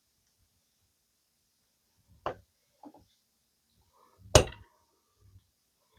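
Sharp clicks from a pry tool working at a clipped-in module inside a Samsung Galaxy S24 Ultra: one click about two seconds in, a softer one just after, and the loudest snap a little past four seconds.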